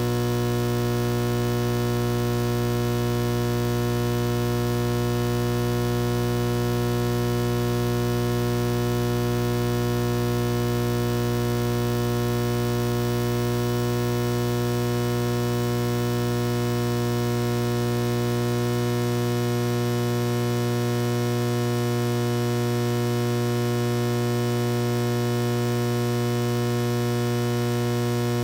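Steady electrical mains hum, low and buzzy with many overtones, at a level as loud as the surrounding speech.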